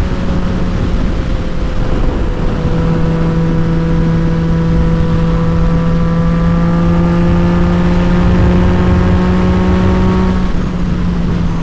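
2018 Yamaha MT-09's three-cylinder engine running at steady revs while riding. The pitch dips slightly about two and a half seconds in and steps up a little near the end, under heavy wind rumble on the helmet mic.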